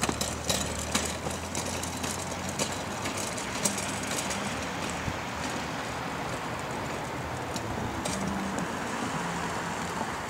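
Small wooden wagon's wheels rolling over a concrete sidewalk, a steady rumbling noise with scattered clicks and knocks in the first few seconds.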